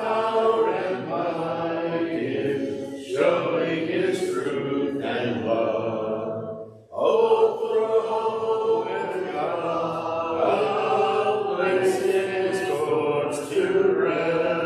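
Congregation singing a hymn a cappella, many voices together without instruments, in long held phrases with short breaths between them about three and seven seconds in.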